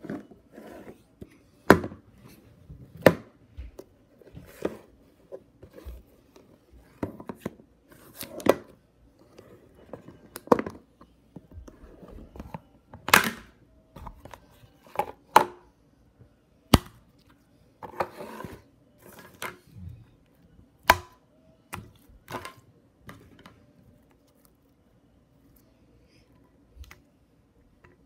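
Hands squeezing and stretching soft green slime, giving irregular sharp clicks and pops every second or so. The popping dies away about four seconds before the end.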